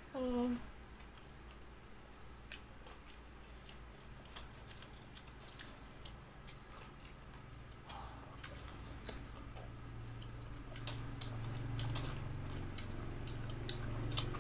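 Close-miked eating sounds: soft, wet mouth clicks and smacks of someone chewing and slurping Samyang spicy instant noodles, getting busier in the second half.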